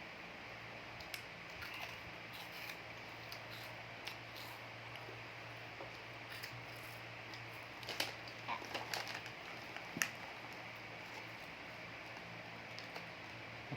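Scattered crackles and clicks of crunchy cheese snacks being eaten and their packaging handled, busiest and loudest about two-thirds of the way through, over a steady low hum.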